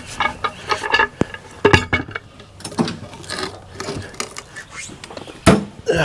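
Irregular clattering knocks and taps, with sharp louder knocks at about one and a half seconds in and again near the end.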